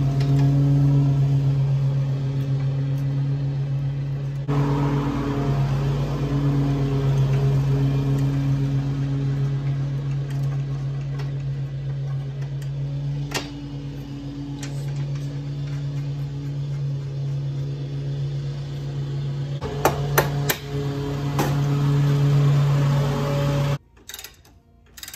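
A steady, loud low mechanical hum, like a running motor, with a few light metallic clicks from parts being handled; the hum cuts off suddenly near the end.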